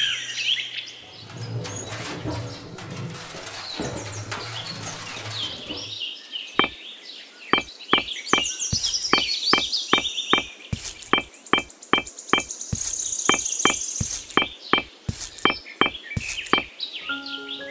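Birds chirping and trilling, joined after a few seconds by a run of sharp little clicks, roughly two a second, as miniature clay bricks are set down one by one.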